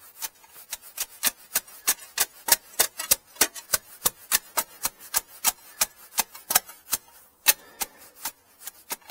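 Hand hammer tapping rapidly and steadily at hard material around the base of a gate post, about three to four sharp taps a second, working the hole so the post will go in.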